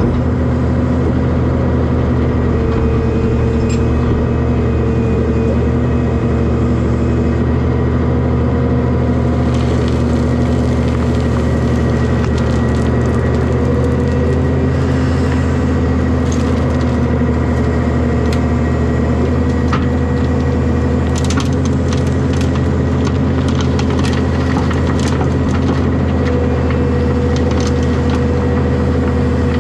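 Heavy diesel engine running steadily, with scattered knocks and crunches of material being loaded into a dump truck, busiest in the second half.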